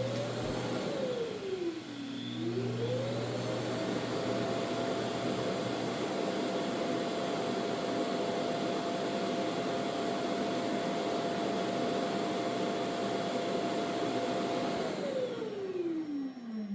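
Mova Z60 base station's auto-empty suction motor emptying the robot vacuum's dustbin into the dock. It spins up, dips in pitch briefly about two seconds in, climbs back to a steady whine for about eleven seconds, then winds down near the end.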